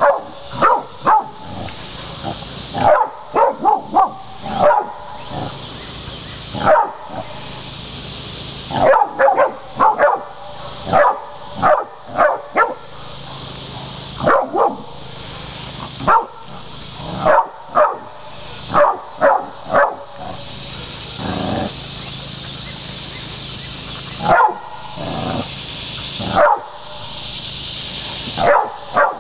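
Catahoula cur dogs barking at hogs held at bay, in irregular clusters of several sharp barks with short pauses between.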